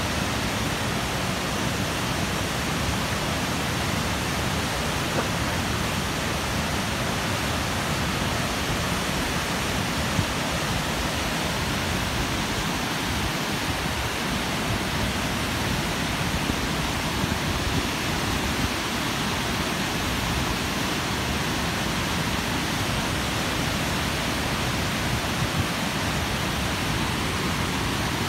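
Water pouring over a concrete dam's curved spillway and splashing into the pool below: a steady, even rush of falling water.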